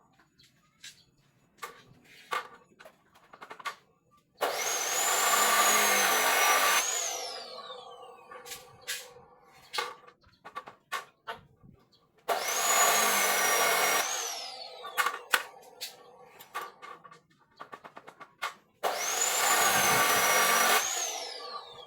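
Handheld electric power tool run three times for about two seconds each, its high motor whine falling away as it winds down after each burst, with light knocks and clicks in between.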